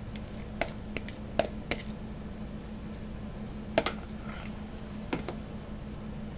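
A plastic container tipped and knocked against a wooden cutting board while emptying filling onto a tortilla: about half a dozen sharp clicks and taps, several in the first two seconds and more near the middle, over a steady low hum.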